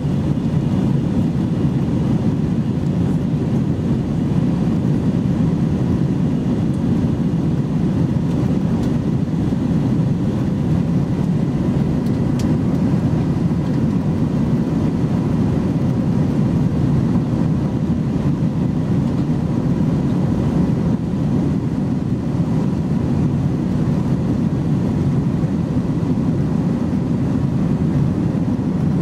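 Steady cabin noise of an Airbus A321-211 in flight, heard inside the passenger cabin: the low drone of its CFM56 engines and the rush of air over the fuselage, with a faint steady hum on top.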